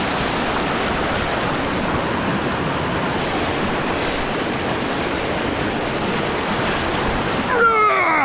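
Steady rush of a fast mountain stream with a waterfall close by. Near the end, a brief whine-like sound falls quickly in pitch.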